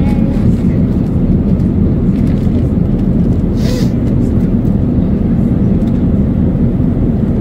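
Steady low rumble of an airliner cabin in flight, from the engines and the airflow. A brief hiss comes about halfway through.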